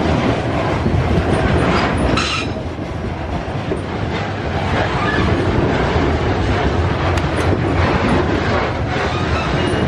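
Loaded covered hopper cars of a grain train rolling steadily past, wheels clattering rhythmically over the rails, with a brief high squeal about two seconds in.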